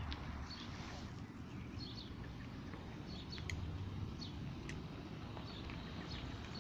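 Outdoor ambience: small birds chirping now and then over a steady low rumble, with a couple of sharp clicks in the middle.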